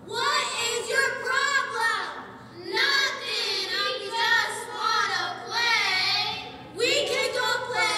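Group of girls' voices singing together in short phrases, with brief breaks about two and a half and seven seconds in.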